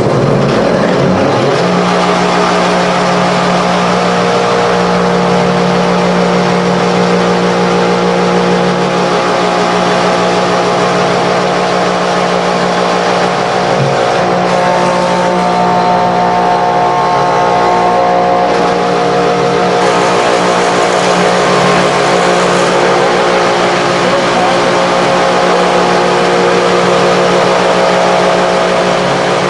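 Delta Rockwell 18-inch planer (model 22200) with its 5-horsepower belt-drive motor running loud and steady, settling to speed in the first couple of seconds after start-up. Its tone shifts a little around 14 and 20 seconds in.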